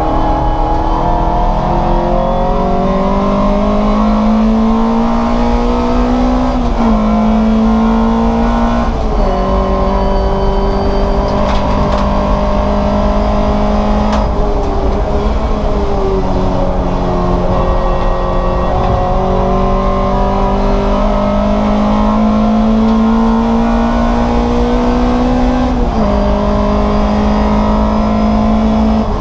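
Race car engine running hard at racing speed. Its note climbs slowly in pitch under acceleration and steps suddenly several times.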